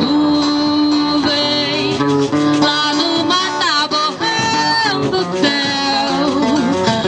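A woman singing a melody with long held notes, pitch slides and vibrato, over an acoustic guitar.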